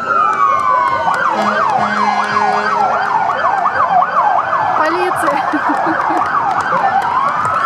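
Emergency vehicle sirens from a fire engine and police car moving slowly past. The siren goes as a slow rising and falling wail, switches about a second in to a fast yelp of roughly three sweeps a second, and goes back to a slow wail near the end.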